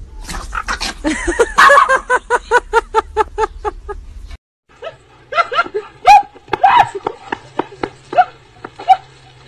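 A dog barking in a fast, even run of short barks, about four a second, which cuts off suddenly. After a brief gap come irregular voice-like sounds and animal calls.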